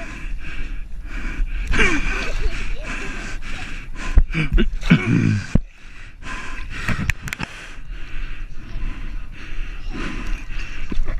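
Gasps and short voice exclamations from small children and an adult in a swimming pool, with water splashing and sloshing around them.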